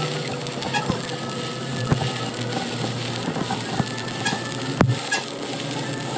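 Scattered sharp knocks and clinks of workshop work, about five of them, the loudest nearly five seconds in, over a steady low hum.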